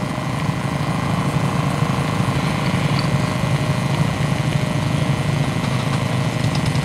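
Racing lawnmower engines running steadily.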